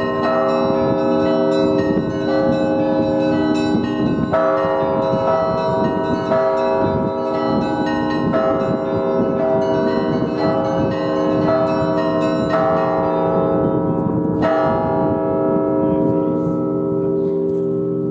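Russian Orthodox church bells of many pitches struck together in a repeating pattern, each strike ringing on over the others. The strikes thin out after about fifteen seconds, leaving the bells humming as they die away.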